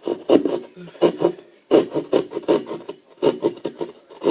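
Hand saw cutting through drywall: quick rasping back-and-forth strokes, about two or three a second, cutting out the opening for an electrical box.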